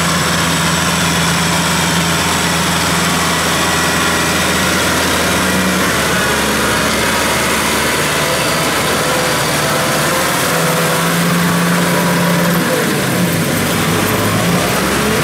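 Kubota M6040 tractor's four-cylinder diesel engine running steadily while working a rotary tiller through wet paddy mud; the engine speed shifts a few times, with a brief dip and rise in pitch near the end.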